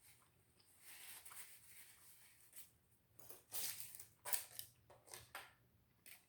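Close-miked chewing and mouth sounds of someone eating, in a string of short, crackly noises over a quiet background.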